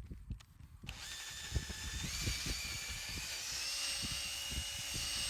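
Cordless drill running steadily, starting about a second in, its whine stepping up in pitch a little once or twice.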